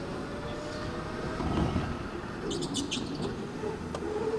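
Electric go-kart's motor whining steadily as it drives through a corner, with a few short, high tyre squeals about two and a half seconds in, from a corner taken too hot.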